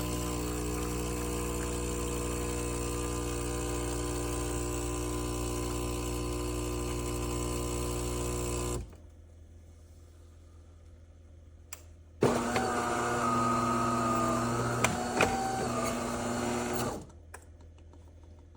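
De'Longhi Magnifica Start espresso machine running in two stretches. First a steady hum of about nine seconds that cuts off. After a few seconds' pause comes a second run of about five seconds, with a higher whine that shifts in pitch.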